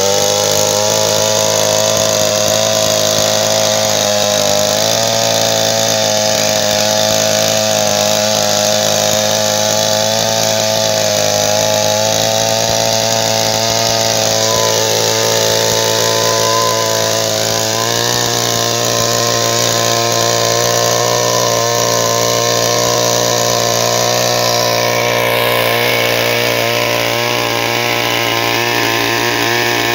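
Two-stroke chainsaw running steadily under load as it rips a log lengthwise along the grain. The engine note shifts slightly about five seconds in and again about eighteen seconds in.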